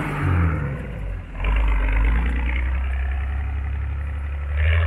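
Off-road 4x4's engine running: revs rise briefly at the start, dip about a second in, then settle into a steady low drone.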